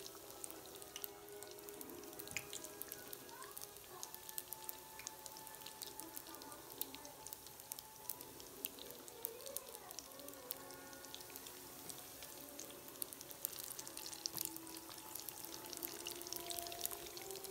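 Yeast doughnuts frying in a pan of hot oil: a faint, dense crackle of many small pops, with soft background music over it.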